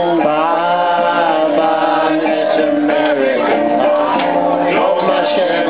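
Live band performing a song, with a singer's voice over the instruments.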